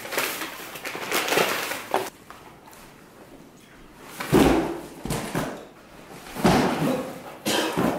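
Cardboard shipping boxes being dropped and set down on a rug over carpet: a series of about four dull thuds in the second half, the first the loudest.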